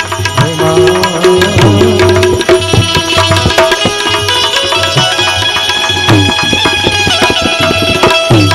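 Instrumental break in a Gujarati devotional folk song: tabla playing a busy rhythm, its bass drum bending up and down in pitch, over steady melodic accompaniment.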